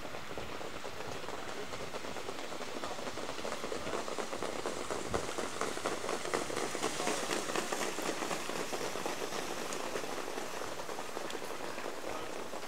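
Many trotters' hooves and sulky wheels pattering on the wet racetrack surface, a dense crackle that swells about halfway through as the field passes close, then eases off.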